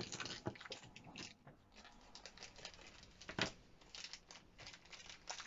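Plastic packaging of a mystery toy egg being handled and unwrapped: faint crinkling and scattered clicks, with one sharper crackle about three and a half seconds in.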